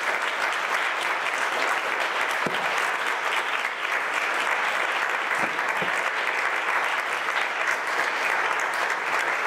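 Audience applauding: dense, steady clapping that holds at an even level without a break.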